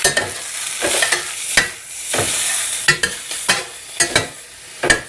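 Brussels sprouts sizzling in hot olive oil in a pot while being stirred, with repeated knocks and scrapes of the utensil against the pot.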